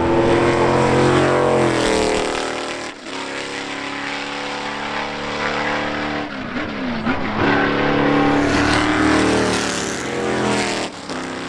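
V8-engined Can-Am race cars at racing speed, passing one after another. The engines rev hard, with pitch falling and rising as they change gear.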